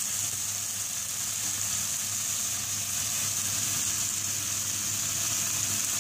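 Diced onion and tomato sizzling steadily in hot oil in a non-stick frying pan.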